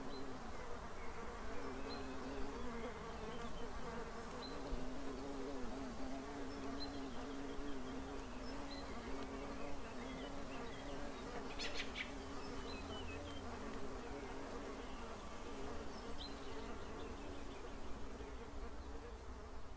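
Insects buzzing, a steady wavering hum, with faint short high chirps every second or two and a brief scratchy burst about twelve seconds in.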